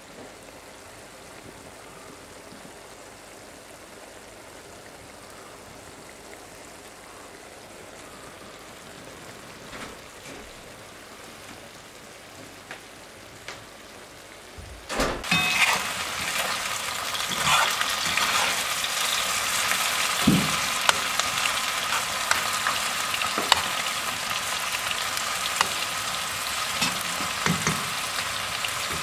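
Saffron milk cap mushrooms frying in a pan on a wood-burning stove, a faint sizzle that turns much louder about halfway through. In the louder part a metal spoon stirs the mushrooms, with scattered clicks and knocks against the pan.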